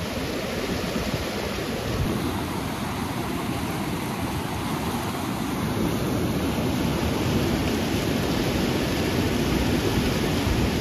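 Fast, turbulent mountain river rushing over a rocky bed: a steady wash of white-water noise that grows a little louder a couple of seconds in.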